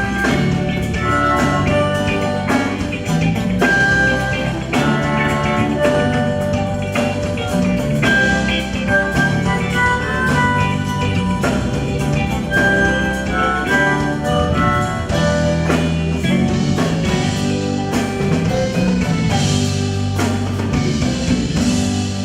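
Instrumental break in a band's festa junina song, with drums and bass under a melodic lead line and no singing.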